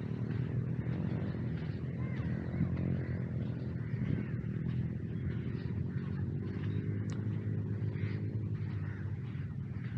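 A steady, low engine drone.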